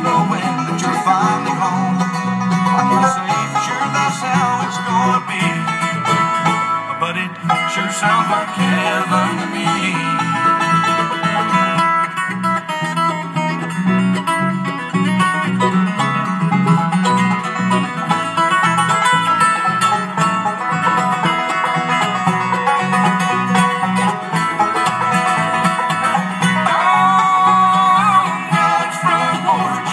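Bluegrass band playing live on banjo, acoustic guitar and mandolin, amplified through PA speakers, with steady picked rhythm and melody lines.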